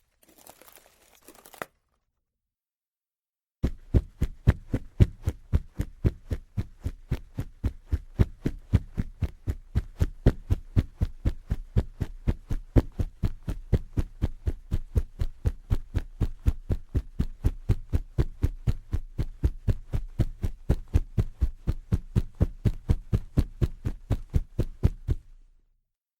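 Running footsteps: a long, even run of heavy footfalls with a deep thud, about four a second, starting about three and a half seconds in and stopping shortly before the end. Before them, a brief faint crinkling rustle, then a pause.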